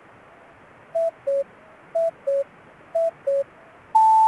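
Radio time signal marking the hour: three two-note electronic beeps a second apart, each a higher note then a lower one, over faint hiss. A long, steady, higher tone starts near the end, sounding the hour.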